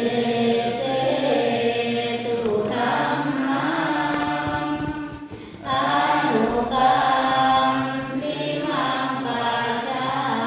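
Chanting by several voices in long, drawn-out tones that shift pitch every few seconds, with a short break about five and a half seconds in.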